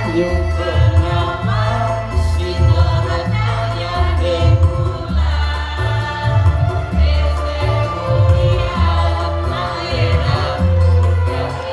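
Mixed choir of men and women singing over an electronic keyboard accompaniment with a strong, heavy bass line.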